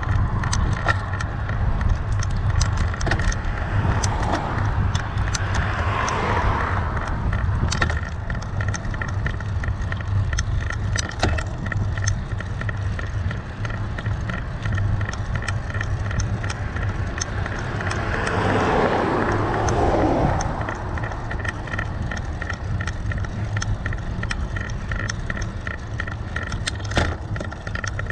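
Steady wind and road rumble from riding a bicycle, with frequent small rattles and clicks from the bike. Two cars pass, one about five seconds in and another near two-thirds of the way through, each rising and falling.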